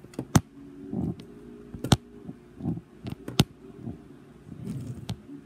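Three sharp clicks about a second and a half apart from small objects being handled close to the microphone, with softer rustling between them.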